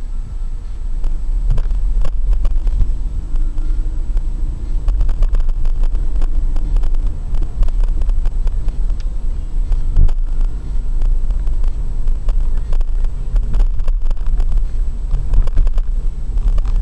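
Car driving through city streets, heard from inside the cabin: a steady low rumble of engine and tyres on the road, with frequent small knocks and rattles.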